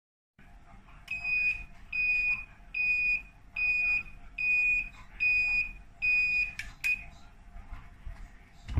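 Mug sublimation heat press's timer alarm beeping at the end of the pressing time: seven high beeps about three quarters of a second apart. Near the end there is a loud clunk as the press's clamp lever is thrown open.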